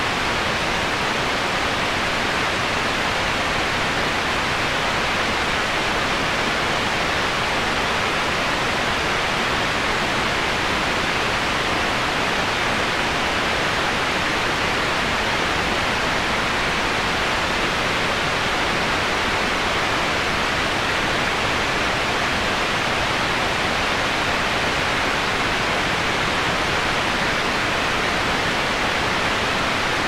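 Shallow rocky stream rushing over rocks in small rapids: a steady, even rush of water that does not change.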